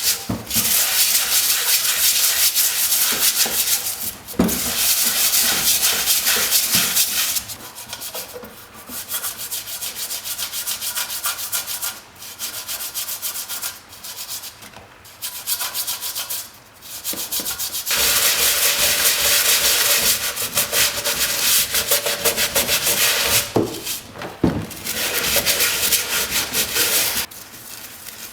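Hand sanding: long stretches of steady, scratchy rubbing. It goes softer and more broken in the middle, then returns loud near the end, with a few small knocks between passes.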